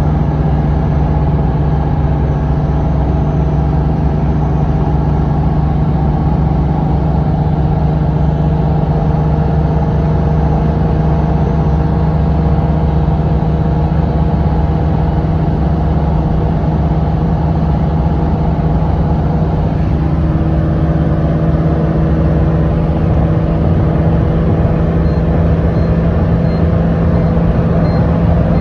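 A road vehicle's engine and road noise during a ride, a steady hum that drifts slightly higher in pitch near the end.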